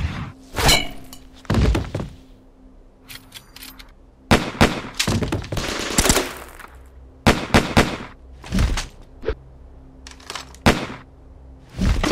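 Gunfire sound effects: single shots and short bursts at irregular intervals, with a dense run of firing about four to six seconds in.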